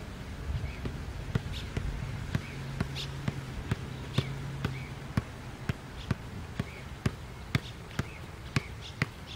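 Soccer ball juggled on one foot: sharp kicks of the foot against the ball, irregular at first and then steady at about two a second.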